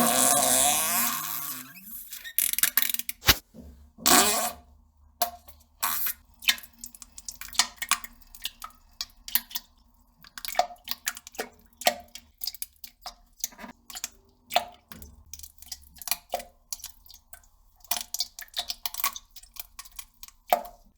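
A fart sound lasting about two seconds, its pitch sliding downward, followed by a long string of irregular short clicks and pops.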